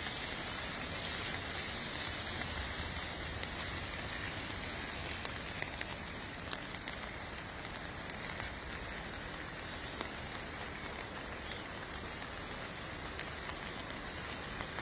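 Steady, even hiss of water, with a few faint ticks.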